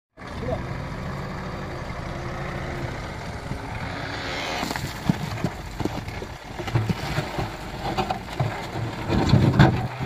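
The turbocharged 3.9-litre FPT S8000 diesel engine of a Case 770EX backhoe loader runs steadily. From about four and a half seconds in, its front loader bucket pushes into rock and soil, and irregular knocks and crunches of tumbling rocks sound over the engine, loudest near the end.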